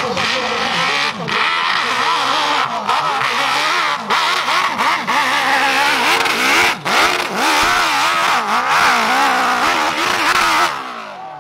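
Dirt bike engines revving hard on a steep hill climb, their pitch rising and falling rapidly with the throttle as the rear wheel spins in the dirt. The sound drops away suddenly near the end.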